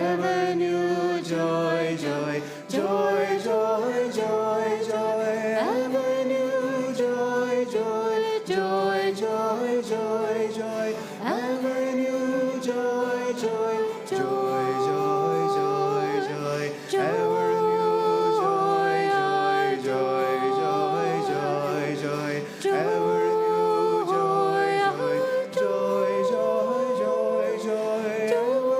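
Voices singing a slow devotional chant, with long notes held with vibrato and phrases that slide up into each new note.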